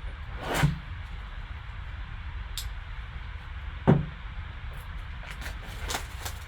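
Two dull knocks of objects set down on a tabletop about three seconds apart, then light clicks and handling noise near the end, over a steady low hum.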